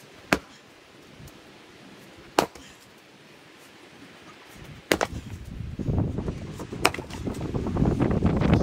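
An axe striking firewood rounds: single sharp chops, about two seconds apart, four in all. From about halfway through, wind buffets the microphone with a loud low rumble.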